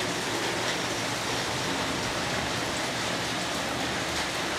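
Heavy rain pouring steadily, an even, unbroken hiss of rain striking roofs and surfaces.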